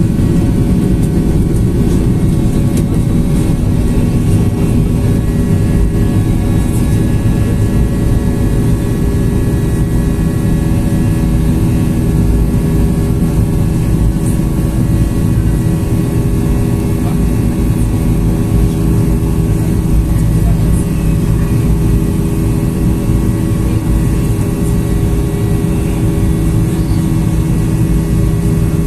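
Cabin noise of a Boeing 737-800 climbing just after takeoff. Its CFM56-7B turbofans at climb power give a loud, steady rumble with a few steady hum tones, heard from inside the cabin near the front.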